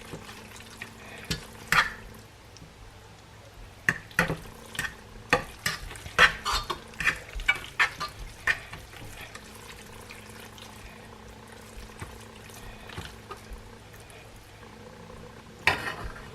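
Instant noodles being mixed with their sauce in a pot on the stove: a utensil scraping and clinking against the pot, busiest between about four and nine seconds in, over a steady low hum.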